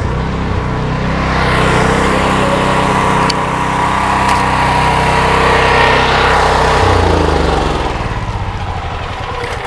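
Belt-drive pressure washer's 15 hp gasoline engine running steadily at speed, then slowing: its pitch falls and the sound drops away about seven seconds in.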